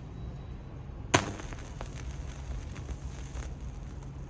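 A sharp high-voltage snap about a second in, followed by faint crackling for a couple of seconds, as arcs from a microwave oven transformer hit an LED board; a steady low transformer hum runs underneath.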